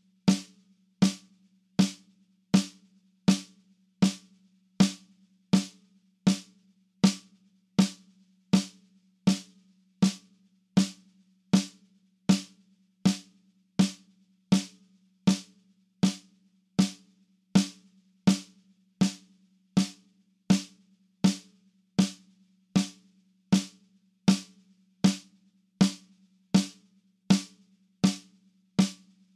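Snare drum struck in slow single strokes, one even hit about every three-quarters of a second (80 beats a minute), each with a short ringing tail.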